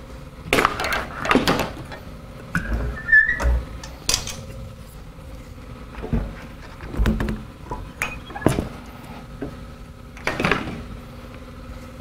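Irregular clunks, scrapes and knocks of the EXAIR EasySwitch vacuum's drum lid, filter and hose being handled during its tool-free changeover from wet to dry mode, with a short squeak about three seconds in.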